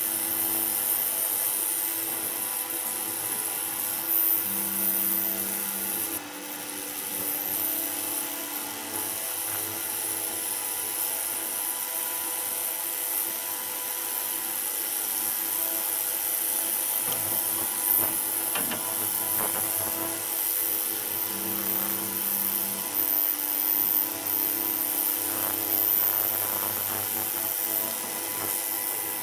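Ultrasonic cleaner running with resin-printed parts in its bath of cleaning liquid: a steady high-pitched hiss with a constant buzz underneath.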